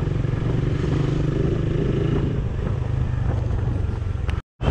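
Motorcycle engine running steadily on the move, heard from on board the bike as a low rumble. The sound cuts out completely for a moment near the end.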